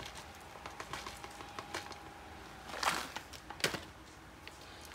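Dry real bacon pieces being measured out and tipped from a container and measuring cup: a run of light clicks and rattles, with two louder strokes about three seconds in.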